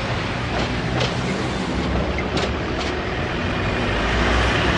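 Steady rumbling background noise with a low hum, broken by a few faint clicks.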